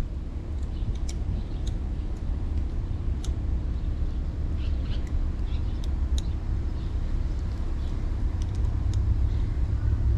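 Scattered light metallic clicks and ticks from a hand tool tightening the brake lever's clamp bolt on the handlebar, over a steady low rumble.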